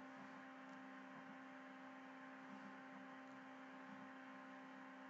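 Near silence, with a faint steady hum of a few even tones over light hiss.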